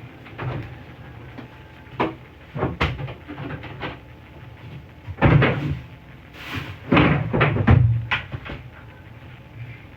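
Kitchen cupboard doors and jars being knocked about in a series of bumps and clatters, loudest about five seconds in and again at seven to eight seconds.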